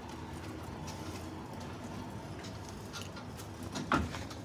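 Manual pallet jack loaded with a drink vending machine being moved by hand over a concrete floor: faint rolling and light ticking, with one short, louder squeak about four seconds in.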